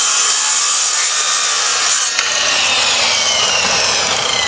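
Circular saw on a track-saw guide rail cutting through a narrow strip of wood. About two seconds in the trigger is released and the blade winds down with a falling whine.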